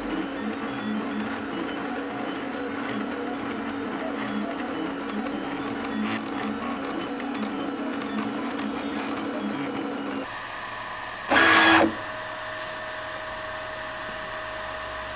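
CEL Robox 3D printer printing, its stepper motors whirring with steady whining tones as the print head moves. About ten seconds in the tones change pitch, and shortly after there is a brief, louder whir about half a second long.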